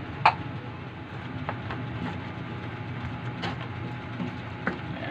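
Pork ribs simmering in sauce in a wok, with a steady low hum and hiss under it, and a handful of sharp clicks and taps as a wooden spatula stirs the ribs against the pan, the loudest about a quarter second in.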